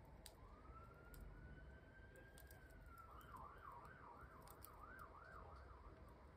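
Faint emergency-vehicle siren: a slow rising wail that levels off, then about three seconds in switches to a quick up-and-down yelp, about two swings a second. Light scattered clicks of the metal crochet hook and fingernails sound over it.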